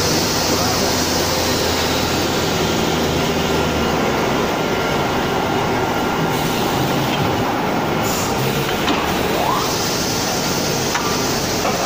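Plywood edge trimming saw running with a steady, loud mechanical noise from its saw motors and feed conveyor as a sheet is fed through.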